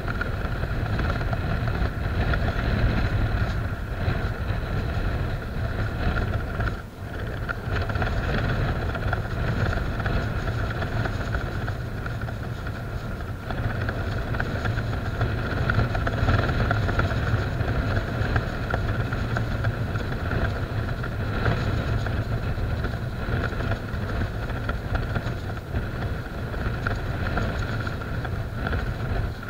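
A steady engine drone, even in level throughout.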